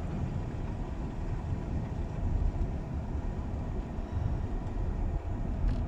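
Steady low rumble of a car on the move.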